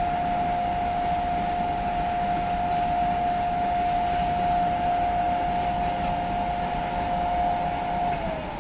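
EU44 Husarz (Siemens ES64U4) electric locomotive's traction equipment whining on one steady high tone over a hum of machinery noise. About 8 seconds in, the tone starts to slide down in pitch as the locomotive begins to pull away.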